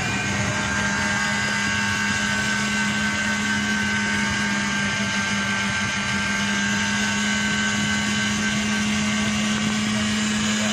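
Countertop electric blender running at a steady speed with a constant motor hum, blending banana and milk into a frothy shake.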